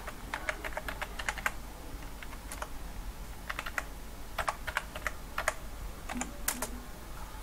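Typing on a computer keyboard: irregular keystroke clicks in short runs with brief pauses, as a password is entered.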